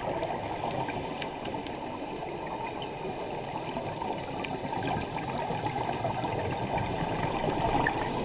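Scuba diving underwater: a steady, muffled rush of water and regulator bubbles, dull and bass-heavy, with scattered small clicks and pops.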